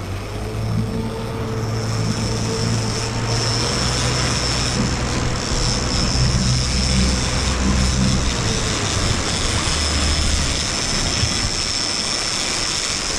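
A boat's engine drones steadily under way, with water rushing along the hull and wind noise over it, and a thin high whine sits on top. The engine note eases off about nine to ten seconds in.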